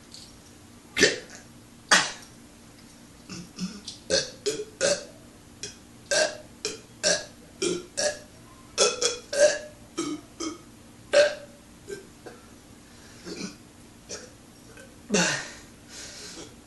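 A man burping on command: a long string of short, abrupt belches in quick succession, often about two a second, with a longer burp near the end.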